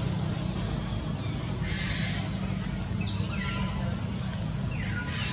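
Birds calling in the background: short high chirps repeating every second or so, with some lower falling notes, over a steady low hum.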